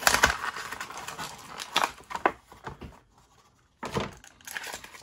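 Clear plastic blister bubble of a Hasbro Retro Collection carded action figure crinkling and clicking as the figure is worked free by hand, with a short pause about three seconds in before a few more clicks.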